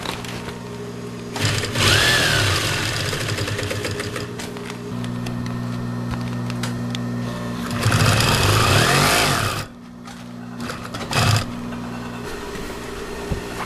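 Singer industrial sewing machine stitching through thick vinyl in two runs, one about a second and a half in and a louder one near the end, over the steady hum of its motor.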